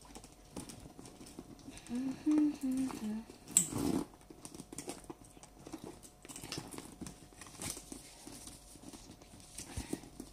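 A woman's voice hums a few notes for about a second, then comes one sharp knock, followed by soft rustling and small clicks from a fabric shoulder bag and its strap buckle being handled.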